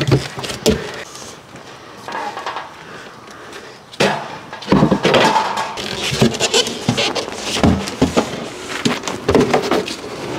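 Irregular knocks and scrapes of objects being handled. It is quieter for the first few seconds, then busier and louder from about four seconds in.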